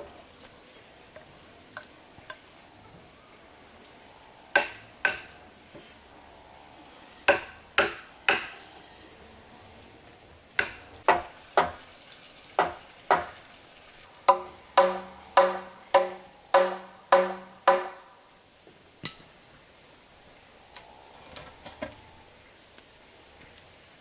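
Hammer blows on timber, coming in groups and picking up into a run of about eight strikes at roughly two a second, the later ones with a ringing pitch. A steady high insect drone sounds under them.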